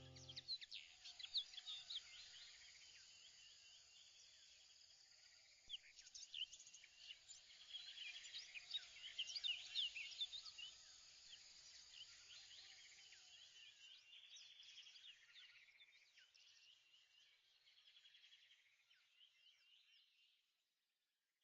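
Faint birdsong: many short, high chirps and trills over a soft hiss, busiest in the middle and fading out near the end.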